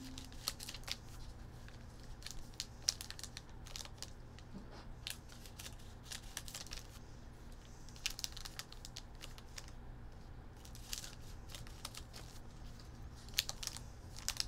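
Scissors snipping open plastic trading-card pack wrappers, with the wrappers crinkling and crackling in scattered short bursts. A steady low hum runs underneath.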